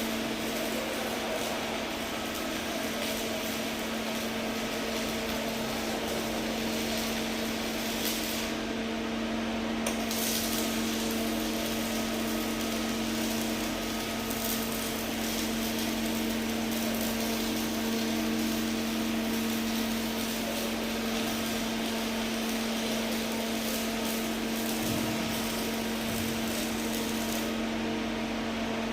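Arc welding: a steady crackling arc over the even hum of the welding machine. The crackle breaks off briefly about nine seconds in and again near the end while the hum carries on.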